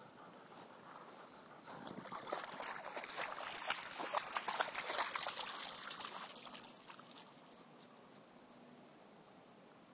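Splashing water: a dense, irregular patter of small splashes that builds about two seconds in and fades out by about seven seconds.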